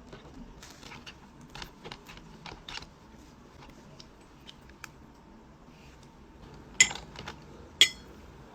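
Light, scattered clicks and taps on a computer keyboard, then two loud, sharp clicks about a second apart near the end.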